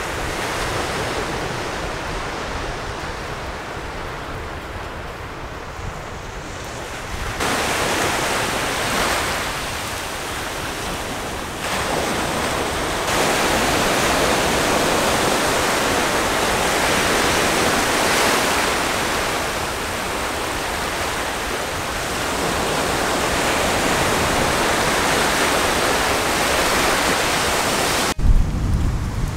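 Sea surf breaking and washing in, a steady rush of water noise with wind rumbling on the microphone. It jumps in level a few times and cuts off suddenly near the end.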